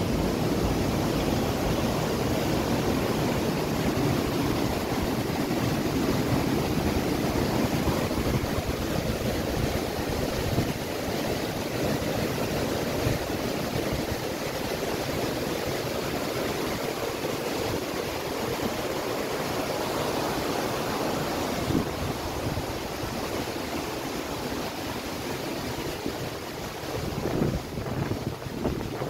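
Steady rushing noise of wind buffeting the microphone, over the sound of the Meuse flowing through the weir.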